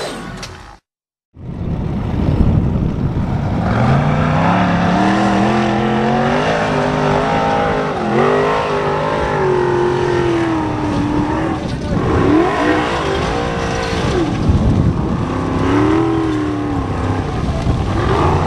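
Formula Offroad buggy's engine revving hard under full load as it climbs a steep dirt hill. The pitch climbs steadily about four seconds in, then rises and falls repeatedly as the revs change.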